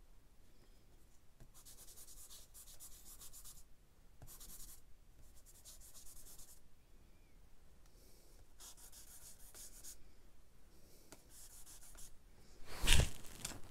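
Stick of charcoal scratching and rubbing on drawing paper in short strokes, each lasting about a second. Near the end there is a brief, much louder rush.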